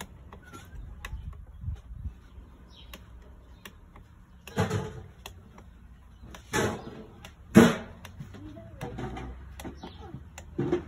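Water and a plastic bottle being handled in a bucket as the bottle is held under: four short splashing, gurgling noises about two seconds apart, the loudest a little past the middle, with faint clicks between.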